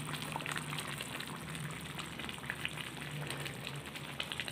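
Koi fish curry in a thin mustard-and-tomato gravy simmering in a small pan over low heat, bubbling and crackling steadily with many small irregular pops. A faint low hum runs underneath.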